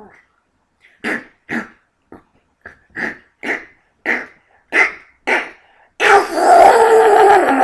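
A man imitating Donald Duck's long, drawn-out sneeze: about nine short, sharp half-sneezes that won't come, then, about six seconds in, a loud, sustained duck-voiced sneeze where it all comes out at once.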